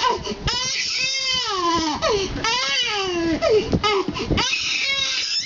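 A baby or young child crying: several long wailing cries, each rising and then falling in pitch, with short catches of breath between them.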